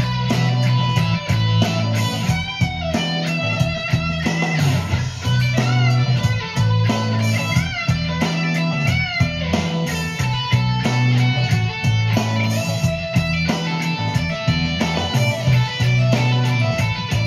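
Amplified Strat-style electric guitar playing a boogie: a repeating low riff under higher lead lines with bent notes.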